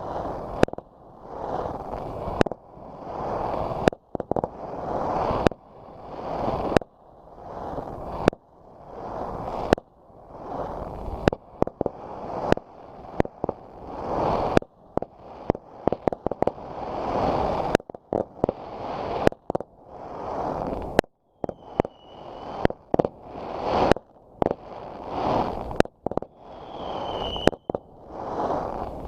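Fireworks going off in steady succession: sharp bangs about every second and a half, with a rushing hiss that swells between them.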